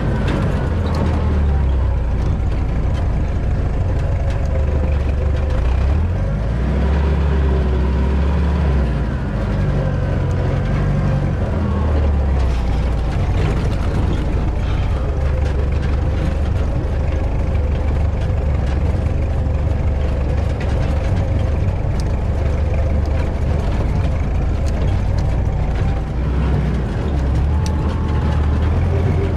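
Ford M151A1 MUTT's four-cylinder engine running while the jeep is driven, heard from the driver's seat, its note rising and falling as the speed changes, with scattered clicks and knocks.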